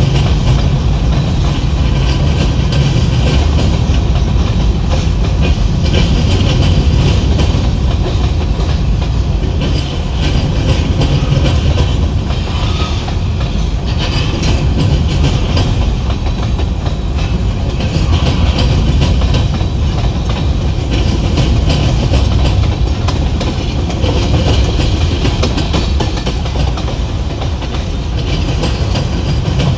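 A train rolling past close by: steady, loud wheel-on-rail noise with repeated clicks from the wheels.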